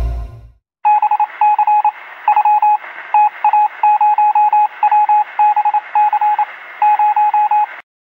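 Rapid electronic beeps in short runs over a faint hiss, a text-typing sound effect as words type out letter by letter. The tail of a music sting fades out in the first half second.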